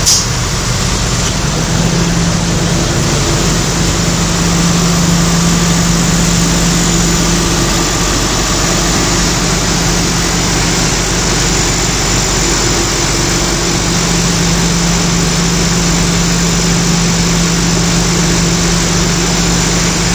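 Double-decker highway coach's diesel engine idling steadily, a constant low hum under an even rush of engine noise.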